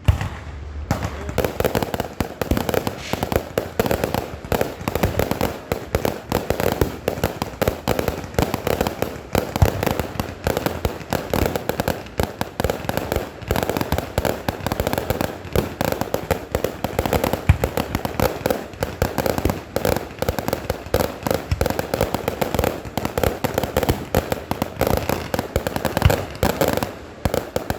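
Rapid, unbroken crackling and popping, a dense run of sharp pops with louder cracks scattered through it.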